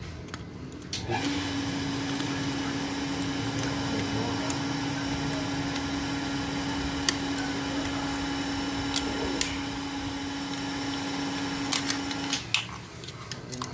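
A motor running at one steady pitch for about eleven seconds, starting abruptly about a second in and cutting off near the end, with a few light clicks over it.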